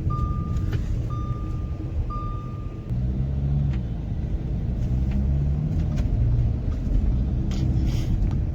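Inside a moving Audi Q5, road and engine rumble with a few sharp ticks from the closed sunroof panel, which rattles where its loose glass rubs in the frame over bumps. For the first three seconds a dashboard warning chime beeps about once a second.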